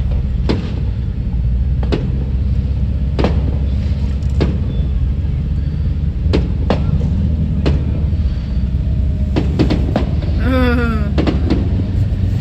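Fireworks going off: a string of sharp bangs at uneven intervals over a steady low rumble, with a brief voice about ten and a half seconds in.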